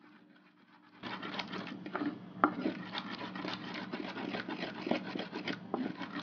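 Wooden pestle (tapoli) grinding a wet pepper-and-onion mash in a grooved earthenware bowl (asanka). Rough scraping and rubbing starts about a second in, dotted with sharp knocks of wood on clay.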